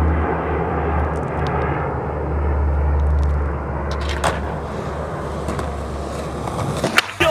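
A steady low outdoor rumble, with a few short clicks.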